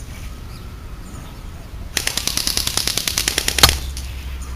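JingGong MAC-10 electric airsoft gun firing one short full-auto burst of about a dozen shots a second, lasting just under two seconds and starting about two seconds in. The burst ends on one louder snap.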